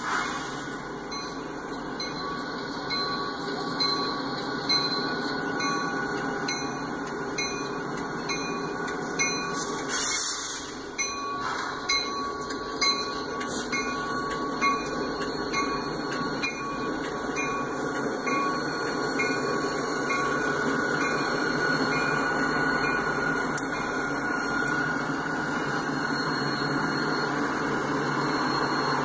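Two CSX EMD GP-series ('geep') diesel locomotives rolling past a grade crossing, their engines running steadily and growing a little louder toward the end as they go by. A crossing bell rings in an even repeating beat throughout. A brief loud burst comes about ten seconds in.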